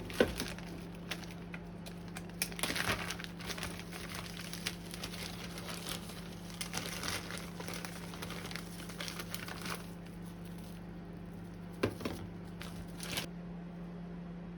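Crinkling and rustling with scattered light clicks and knocks, as of things being handled by hand, over a steady low hum. A sharp knock just after the start and another about twelve seconds in.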